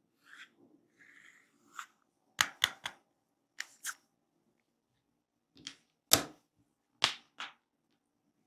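Sharp hand slaps and snaps of a head massage, in small quick groups with gaps between, the loudest about six seconds in.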